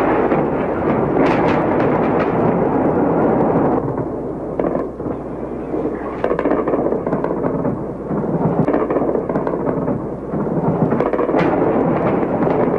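Air-raid explosions over a city, a continuous rumbling din with sharp cracks going off all through it.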